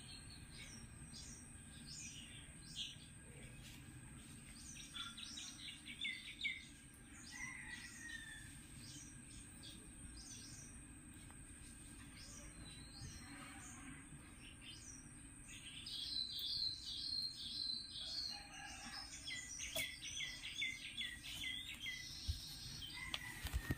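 Small birds chirping and calling, with quick runs of repeated chirps that grow busier about two-thirds of the way through.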